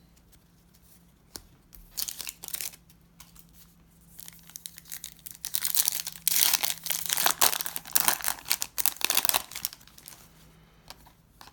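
Foil wrapper of a baseball card pack being torn open and crinkled by hand: a few short crackles about two seconds in, then several seconds of dense crinkling.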